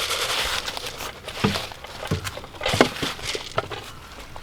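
Footsteps and rustling as a person and goat walk over ground, with a few scattered soft thumps.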